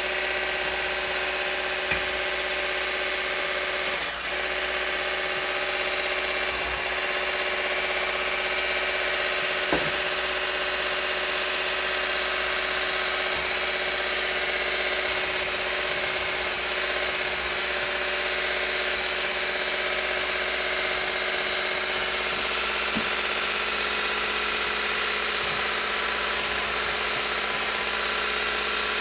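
Electric hand blender with a whisk attachment running steadily on its lowest speed, whisking shea butter and a liquid base in a steel bowl: a constant high motor whine, with one brief dip about four seconds in.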